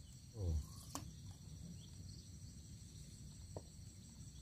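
Faint, steady high chirring of insects, with a soft thump about half a second in and a couple of light clicks.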